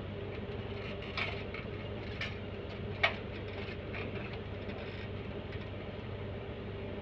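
A steady low hum with a few short clicks or taps; the sharpest click comes about three seconds in.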